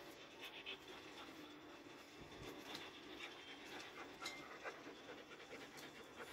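Doberman pinscher panting quickly and faintly with its mouth open.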